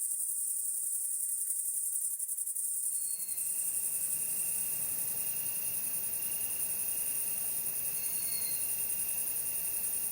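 Chorus of insects shrilling in a dense, high-pitched, finely pulsing drone. About three seconds in, a second, lower steady insect tone and a wider bed of background noise join, with two brief chirps.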